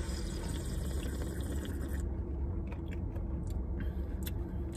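People sipping coffee drinks from cups: a hissing sip for about the first two seconds, then small mouth clicks and swallows, over a steady low hum inside a car.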